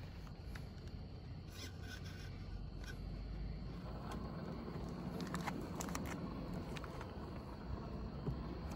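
1/14 scale Tamiya RC semi truck driving slowly over rough ground: a low running noise from its motor and tyres with scattered scrapes and clicks, a little louder from about halfway through.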